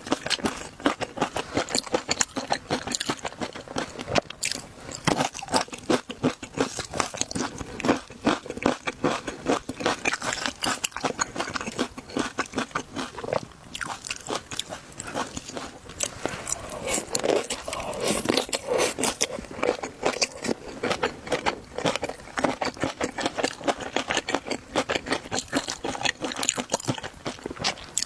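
Close-miked eating of shrimp: continuous crunching and chewing, a dense run of crisp crackles and bites.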